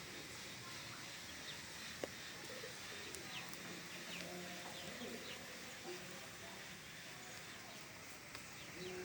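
Faint bird chirps, short and high, with a few lower drawn-out calls, and one sharp click about two seconds in.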